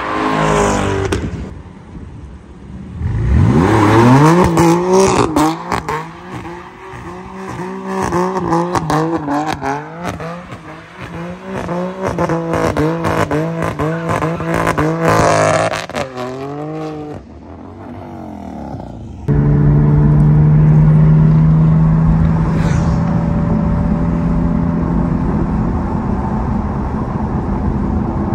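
Car engines revving and accelerating hard, one rising sharply in pitch about three seconds in, then repeated rapid swings in engine pitch for the next dozen seconds. After an abrupt change about two-thirds through, a steady engine drone at a constant pitch.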